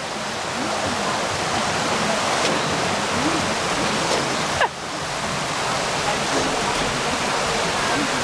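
Alpine coaster sled running down its steel track: a steady rushing noise of the wheels on the rails and the ride's motion, dipping briefly about halfway through.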